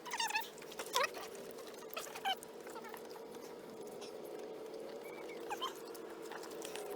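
An animal's short, high whimpering squeaks, a few times, over a steady hum.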